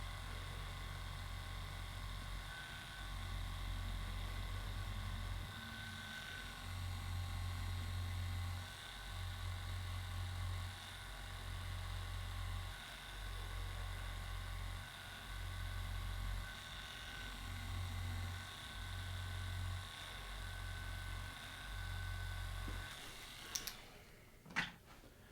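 A low electric hum that comes and goes in stretches of one to two seconds, then stops a little before the end, followed by a couple of faint clicks.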